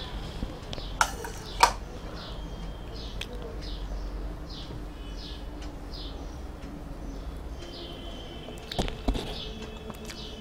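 A small bird chirping over and over, short high chirps about twice a second. A few sharp knocks stand out, two about a second and a half in and two more near the end.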